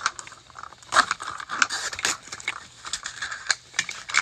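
Crinkly plastic wrapping of a Mini Brands surprise capsule being peeled apart by hand: irregular crackling, rustling and tearing as the segments open and a small wrapped miniature is pulled out.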